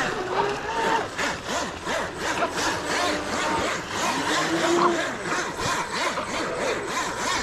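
Electric motors of radio-controlled speedboats whining, pitch rising and falling with the throttle, over a rushing hiss of water spray.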